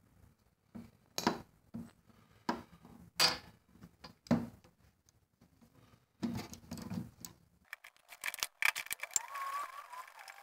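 Small hand ratchet clicking in short runs as a spark plug is backed out of a Honda snowblower engine, followed by rustling and light tapping as the plug is worked loose and pulled out by hand.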